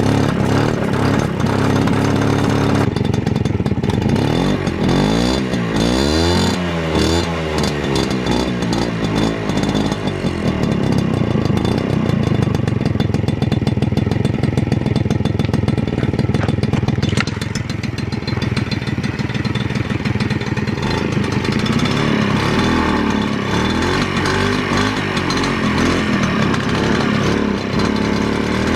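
Piaggio Ciao moped's small two-stroke engine running after an idle-screw adjustment. It is revved up and down several times a few seconds in and again near the end, and holds a steadier speed in between. It keeps running rather than bogging down and stalling.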